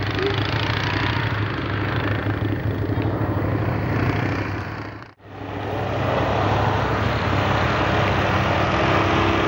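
Max II 6x6 amphibious ATV's engine running steadily as it drives on a snowy slope. The sound cuts out briefly about five seconds in, then carries on with a steady hum.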